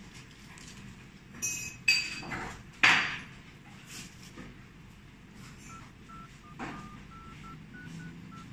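iPhone 5C keypad playing short dialling tones, about eight quick beeps at slightly different pitches in the last few seconds as a number is keyed in. Earlier, a few sharp clicks and knocks from the phone being unlocked, the loudest about three seconds in.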